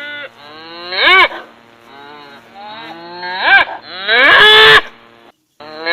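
Cattle mooing: a short call about a second in, then two more in quick succession after about three and a half seconds, the last longer and hoarser.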